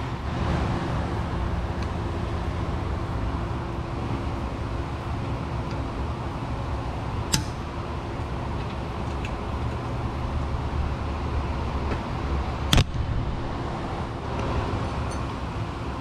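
A steady low hum with two sharp metallic clicks about five and a half seconds apart, as a pick works at an old O-ring gasket in an exhaust flange.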